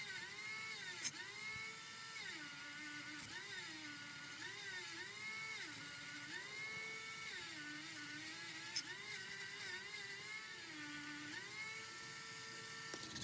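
Small high-speed handheld power tool motor running, its pitch repeatedly dropping and recovering as it is pressed into the work, with two sharp clicks.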